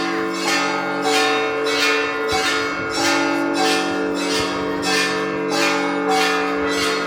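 Russian Orthodox church bells rung together in a steady rhythm: the small bells struck about twice a second over the long, steady hum of the larger bells.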